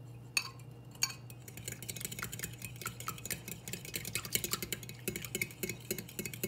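A metal spoon stirring yeast and sugar into water in a glass bowl. It starts with two single taps against the glass, then about a second and a half in gives way to a rapid, continuous run of light clinks as the mixing speeds up.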